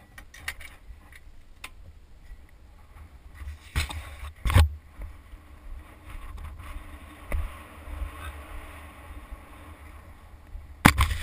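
Low wind rumble on a helmet-mounted action camera's microphone, with a few sharp knocks on the camera or helmet, the loudest about halfway through and another near the end.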